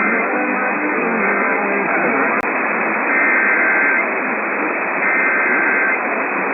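Off-air radio reception full of static hiss, squeezed into a narrow band, with an EAS SAME header coming through: bursts of shrill two-tone digital data, each just under a second long, about three seconds in and again about five seconds in. Fainter bursts of the same kind sit under the static earlier, and there is one brief click about two seconds in.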